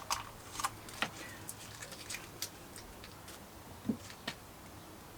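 Light, irregular clicks and taps of small objects being handled, about eight in all, with a duller knock about four seconds in.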